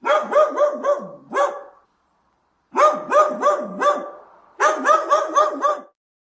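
Dog barking in three quick runs of about five or six barks each, separated by short pauses.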